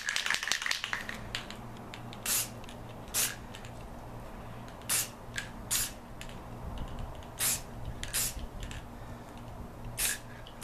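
Aerosol spray-paint can spraying black in seven short hissing bursts, in pairs about a second apart, through a dried-grass stencil onto a plastic shotgun buttstock. A brief clatter of clicks comes in the first second.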